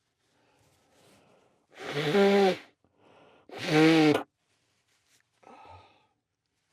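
Two loud voiced sneezes about two seconds apart, each after a short sharp inhale, brought on by Chhinkni sneezing snuff, followed by a softer breath or sniff.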